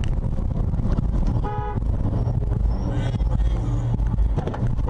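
Low, steady engine and road rumble of a car driving in traffic, with a short car-horn toot about one and a half seconds in.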